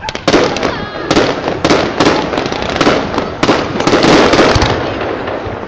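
Aerial fireworks bursting in quick succession: a rapid string of sharp bangs with crackling between them, loudest around the middle and thinning out near the end.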